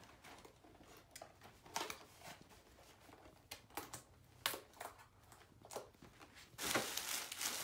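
Scattered light rustles and taps as a paper gift bag is handled, then louder, continuous crinkling of paper near the end as the bag is opened and its tissue paper disturbed.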